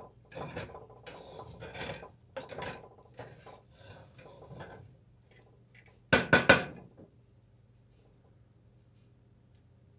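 A series of scraping, rubbing strokes for about five seconds, then a quick clatter of three or four hard knocks, like utensils or dishes being knocked together or set down.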